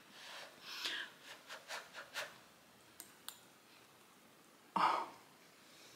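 Soft breaths and mouth noises of someone blowing on and tasting a spoonful of hot stew. Two faint clicks come about halfway through, and a brief vocal sound a little before the end.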